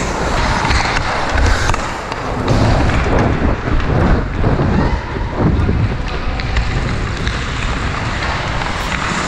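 Ice skate blades gliding and scraping on the rink surface, with wind rushing over the helmet-mounted GoPro's microphone and scattered sharp clicks of sticks and puck.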